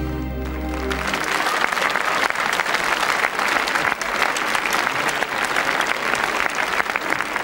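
The song's closing chord rings out and stops about a second in, then a large concert audience applauds steadily.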